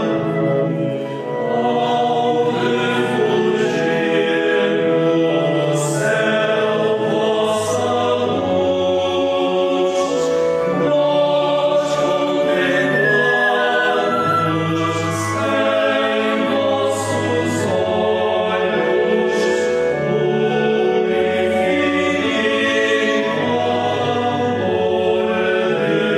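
A choir singing a Catholic hymn in Portuguese, sustained notes in several parts, with a flute playing along.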